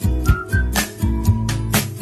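Background music with a steady beat and bass under a short, whistled-sounding tune.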